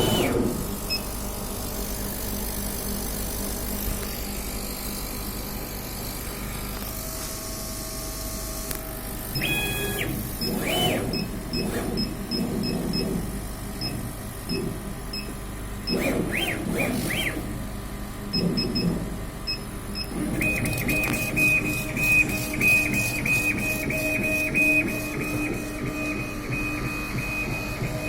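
CO2 laser engraving machine being test-run over a steady hum. Short electronic beeps sound now and then in the first part. From about two-thirds of the way in, its motors drive the head with a steady high whine and fast, even ticking.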